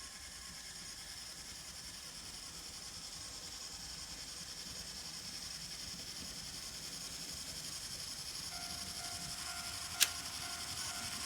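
N scale Kato F3 diesel locomotives running on track: a steady, light gear-and-motor whir that slowly grows louder, with a faint hum joining near the end and one sharp click about ten seconds in.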